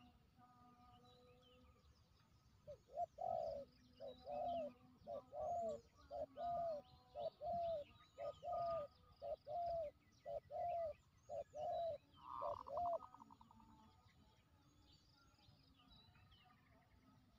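A dove cooing: a rhythmic run of short, low coo notes, about one or two a second, starting about three seconds in and stopping about thirteen seconds in. Fainter chirps of small birds sound around it.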